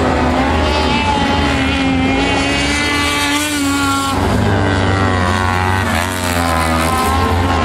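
Engines of several dirt-track racing buggies running hard at once, their pitches rising and falling as they accelerate and shift through gears, with one dropping sharply about four seconds in.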